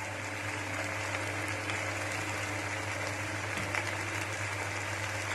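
Chilli chicken sizzling steadily in a pan over a high flame: an even frying hiss, with a steady low hum underneath.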